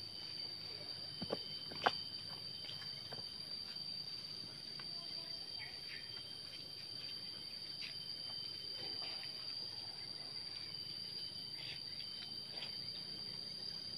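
Steady high-pitched insect drone, with two sharp knocks a little under two seconds in.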